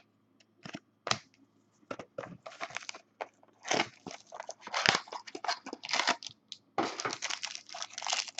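Crinkling and tearing of a trading card pack's wrapper as it is opened: irregular crackles that start sparsely and grow busy from a couple of seconds in.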